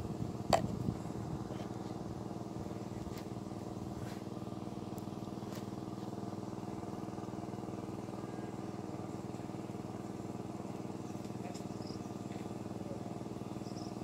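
A motor running steadily: a constant low hum made of several held pitches, with a sharp click about half a second in.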